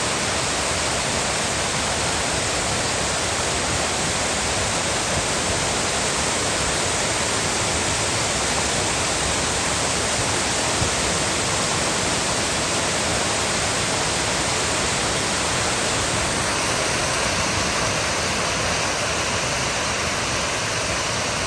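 Man-made garden waterfall: water falling and splashing in a steady rush, with a slight change in tone about three-quarters of the way through.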